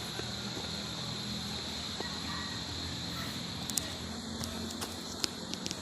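Steady high insect buzz over a low hum, with a few sharp clicks near the end.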